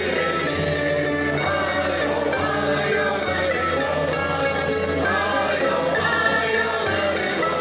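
Portuguese folk choir of men and women singing together, accompanied by strummed guitars and mandolin-type strings.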